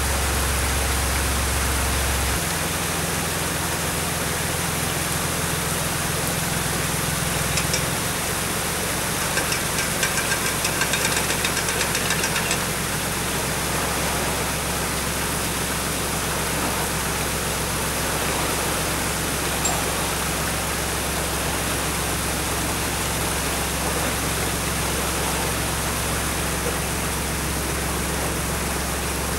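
Narrowboat's engine running steadily under a constant hiss of water and wind; its low hum changes about two seconds in and again near eight seconds. A rapid rattle lasts a few seconds around ten seconds in.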